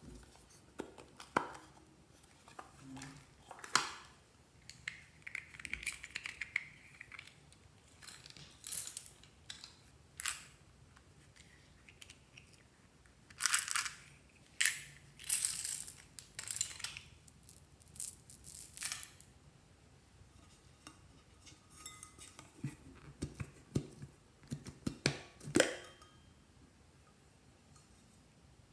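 Plastic toy containers and lids being handled and opened by hand: scattered clicks, taps and short rustling, crinkling bursts, with a brief squeak about six seconds in.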